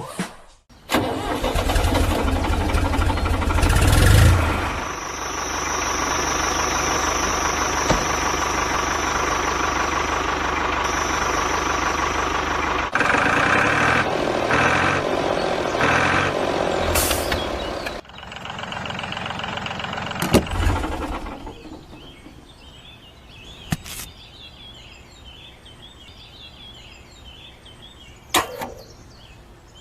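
A motor starts with a rapid low chugging, then runs steadily with a high whine for several seconds. The sound changes around thirteen seconds in and dies away after about twenty-one seconds, leaving a few sharp clicks.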